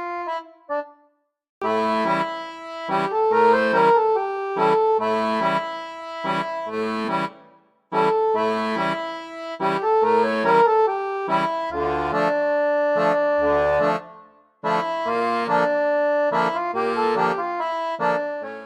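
Instrumental background music: a melody with bass notes, played in phrases with brief breaks about a second in, around seven and a half seconds in and around fourteen seconds in.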